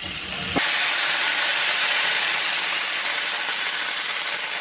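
Vinegar sizzling in the oil of a still very hot cast-iron grill pan. The loud hiss starts suddenly about half a second in and then holds steady, fading only slowly.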